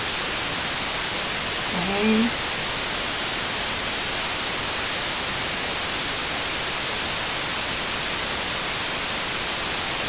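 Steady hiss of recording noise throughout, with one short, low voiced murmur about two seconds in.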